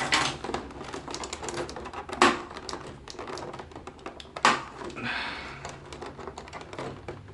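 Quick clicks and crackles of a clear plastic packaging tray and a toy figure being handled while a utility knife frees the figure from its ties. Two sharper clicks come about two and four and a half seconds in, with a brief rustle just after the second.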